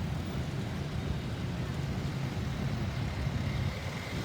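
Road traffic: a steady low engine and tyre rumble from passing motor vehicles.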